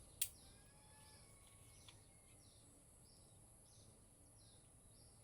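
Near silence with a cricket chirping faintly and evenly, about one and a half chirps a second. One sharp click comes a quarter second in.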